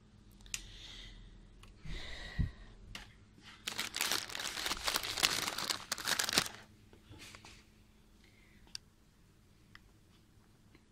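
Crinkling and rustling of plastic snack wrappers, with soft rustles early and a dense, loud crackle of about two and a half seconds from roughly four seconds in.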